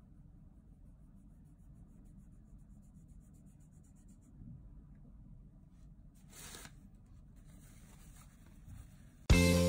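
Faint, quick scratching of a water brush on watercolor paper as a small paint swatch is brushed in, then soft rustling of a paper tissue. Guitar music comes in suddenly and loudly just before the end.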